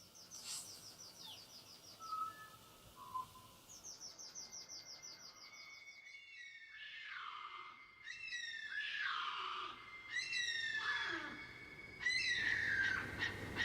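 Birds calling: two rapid, high trills, then a series of repeated whistled calls that sweep down and back up in pitch and grow louder toward the end.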